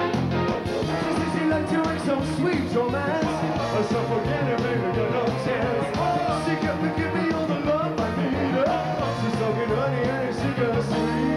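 Rock band playing live: drums, bass, guitar and keyboards with a driving beat, and a wavering lead melody line over them.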